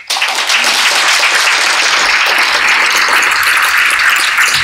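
Audience applauding steadily after a talk, dense clapping that starts abruptly and keeps an even level.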